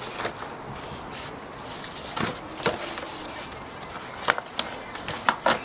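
Large paper-backed vinyl decal sheets with transfer tape being handled and flexed, giving a few sharp crackles and snaps, more of them close together near the end.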